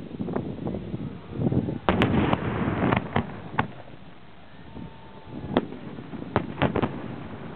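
Aerial fireworks going off in a string of sharp bangs, densest and loudest about two to three seconds in with crackling between them, then a few separate bangs near the end.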